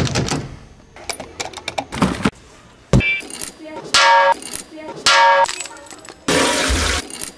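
A string of everyday object sounds: a door handle clicking as it is pressed, then a stick striking a metal can, ringing with each hit, about three times. Near the end comes a loud rushing, jingling burst from a bunch of keys being shaken.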